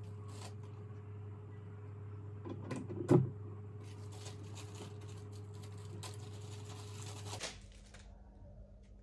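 Hands handling microscope eyepieces and their plastic bags: soft rustling and small clicks, with a short cluster of knocks and one sharp knock about three seconds in, over a steady low hum.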